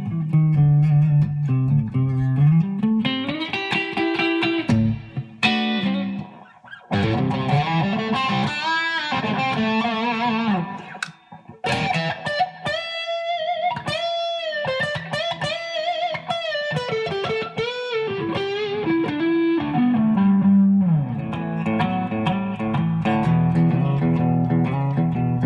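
Epiphone Les Paul-style electric guitar played through a Blackstar amplifier: a melodic lead of sustained single notes with bends, pausing briefly about six and eleven seconds in. Near the end it settles into lower held notes.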